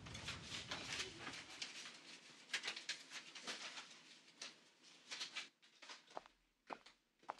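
A woman's footsteps walking away across a floor, a quick run of taps and clicks that grows sparser and fainter.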